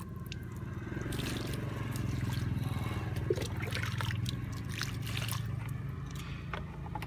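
Liquid trickling from a cup of Trichoderma solution onto the potting mix, over a steady low hum, with scattered light knocks.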